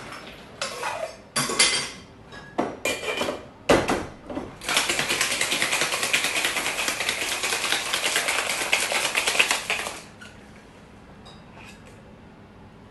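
Clinks and knocks of a steel Boston cocktail shaker, with a sharp knock about four seconds in. Then about five seconds of hard shaking, ice rattling inside the metal tins, which stops abruptly around ten seconds in.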